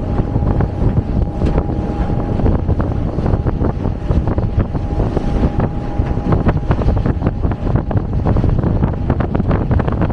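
Wind buffeting the microphone over a steady low rumble, with a faint steady whine that fades out about halfway through.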